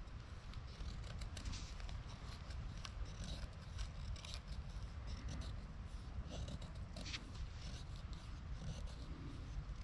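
Knife blade shaving thin curls off a fairly dry stick to make a feather stick for fire-lighting: a series of short, faint scrapes, roughly one a second and unevenly spaced.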